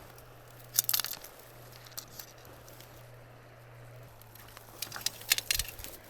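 Two short bursts of crinkling, crackling rustle, about a second in and again around five seconds in, over a faint steady hum.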